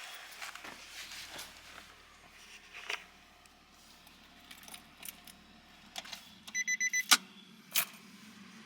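Keys jangling and scattered handling clicks. About six and a half seconds in comes a quick run of about six short, high electronic beeps, followed by two sharp clicks.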